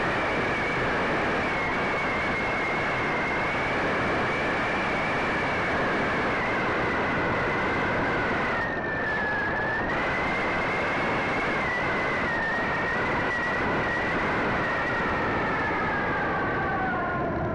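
Electric motor and propeller of a Sky Surfer RC glider whining steadily over a rush of wind, heard from a camera on the plane. The whine dips briefly about nine seconds in and falls in pitch near the end.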